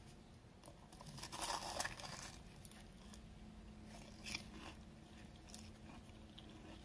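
Faint crunch of a bite into a fried coxinha's crisp golden crust, about a second in, followed by a few quieter chewing crunches.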